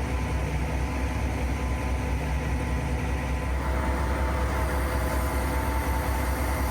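Knuckle boom crane truck's engine running steadily under a lift, a low drone with a steady whine over it; the whine shifts and a higher tone comes in a little past halfway.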